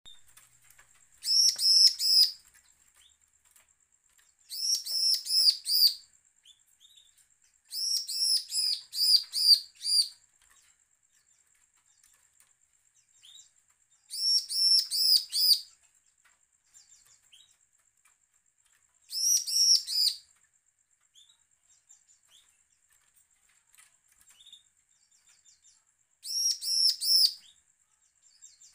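Bar-winged prinia (ciblek) singing its threatening, challenging song: six short bursts of quick, repeated high-pitched notes, each burst one to two seconds long, with faint single chips between.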